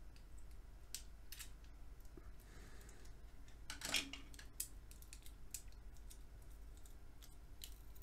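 A screwdriver prying and scraping at the terminals and wrap of a cylindrical-cell battery pack as it is handled: faint scattered clicks and scrapes, with one louder crackly scrape about four seconds in.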